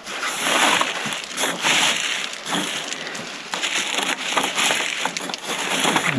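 Loose broken limecrete rubble and pebble-like aggregate crunching and rattling in irregular handfuls as it is scooped out by hand around a buried drain pipe.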